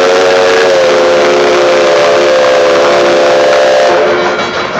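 Durango & Silverton narrow-gauge steam locomotive's whistle blowing one long, loud chord of several notes, cutting off about four seconds in. After that only the train's running noise is left.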